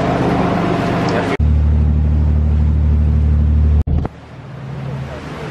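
Boat engine droning steadily, with water rushing past the hull and wind on the microphone. The sound breaks off suddenly twice. After the second break the engine drone drops away and the wash of the sea swells.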